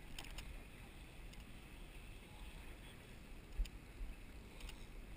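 Faint, steady wind and water noise on a small boat at sea, with one sharp knock about three and a half seconds in.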